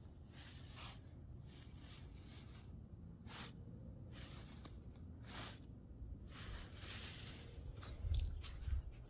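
Faint, short rustles, a second or two apart, as a wolfdog puppy noses about in the grass beside the phone. Near the end come a few louder low bumps as a puppy's fur brushes against the phone.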